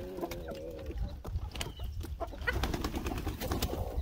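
Domestic hens giving low calls as they come out of the coop, a pitched one in the first second and a rougher one later, among scattered sharp clicks and taps.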